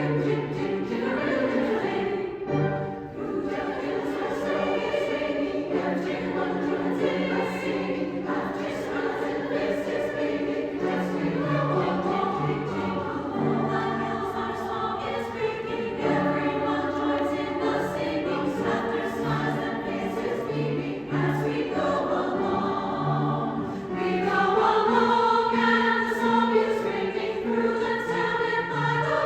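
Choral music: a choir singing long held notes over a moving bass line, growing louder and fuller near the end.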